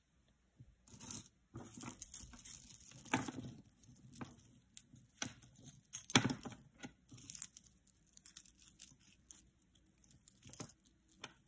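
Tangled thin metal bangle bracelets and chains clinking and rattling with rustling as they are pulled from a pile of jewelry and picked apart by hand. The clicks and rustles come irregularly, with the loudest clatter about six seconds in.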